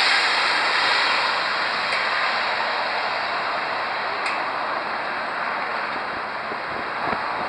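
Jet engine noise of a twin rear-engined regional jet on final approach, a steady rushing sound that slowly fades as the aircraft moves away.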